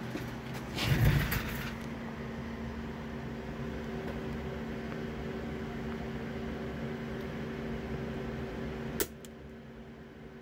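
Steady electrical hum and buzz from a bench power-supply setup, with a brief rustle of handling about a second in. About nine seconds in the power supply's switch clicks sharply, and the buzz drops to a quieter hum.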